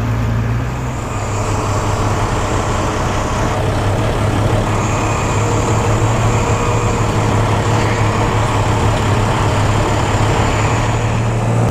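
Diesel bus engine running steadily with a constant low drone, over road and traffic noise.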